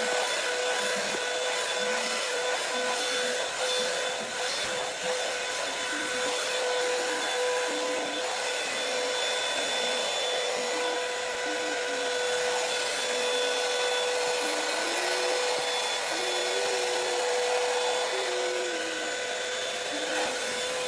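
A 5-in-1 hot air styler's fan motor running steadily, a high whine over a rush of blown air.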